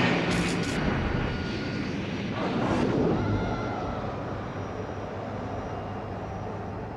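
Sound effect of Moguera, the giant robot from the 1994 Heisei Godzilla film: a steady mechanical roar over a low hum, swelling about three seconds in and cutting off just before the end.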